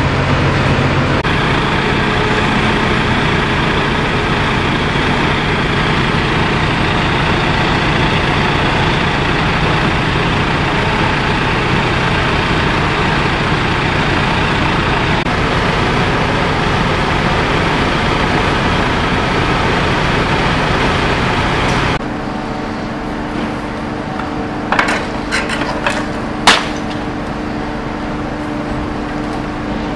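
A fire engine's engine running steadily and loudly, driving the pump that feeds the hoses. About 22 seconds in, the sound cuts to a quieter steady engine hum with a few sharp knocks.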